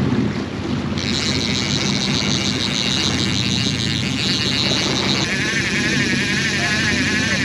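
Sport-fishing boat's inboard engines running steadily, with a high whirring sound that starts about a second in and shifts to a lower, wavering pitch about five seconds in.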